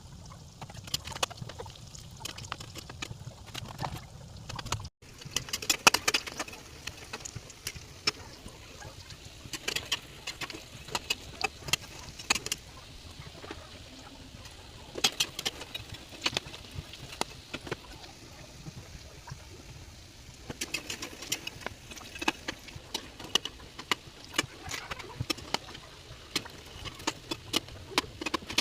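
Irregular sharp clicks and pops of lumpia being prepared or fried, coming in clusters with short lulls.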